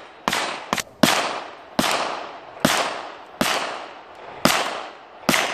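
String of about eight rifle shots from a 10.5-inch 5.56 short-barrelled AR rifle, fired a little under a second apart, each trailing off in a long fading echo.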